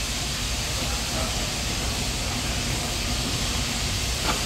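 Steady construction-site noise: an even hiss with a faint low engine hum underneath, and a single click about four seconds in.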